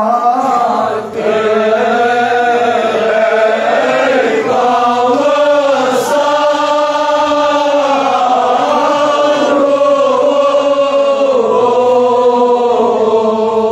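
Men's voices chanting a Kashmiri marsiya, a Shia mourning elegy, in slow, long-held notes that slide gently from pitch to pitch.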